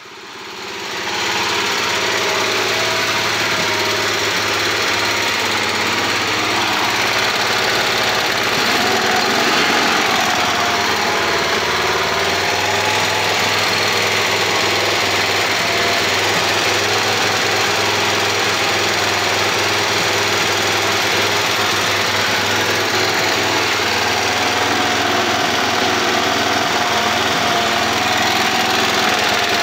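8 HP snowblower engine running steadily, its exhaust muffled through a car's Thrush Turbo muffler. The sound fades in over the first second or so, then holds level with only slight wavers in speed.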